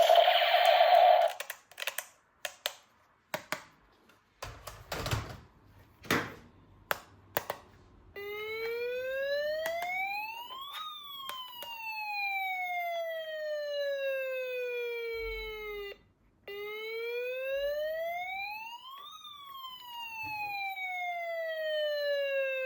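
A toy's electronic buzzing effect cuts off about a second in, followed by a few seconds of plastic clicks and handling. Then a toy's electronic siren starts wailing: a slow rise then a longer fall, cut off for an instant and starting a second wail.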